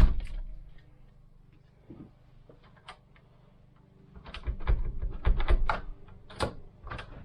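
Clicks and knocks from a newly installed entry door and its hardware: one sharp click at the start, then a quick run of latch clicks and door knocks with low thumps about four to seven seconds in.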